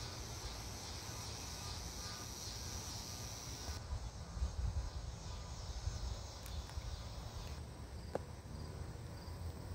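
Outdoor ambience: insects chirring as a steady high hiss that thins out about four seconds in and again near eight seconds, over a low rumble.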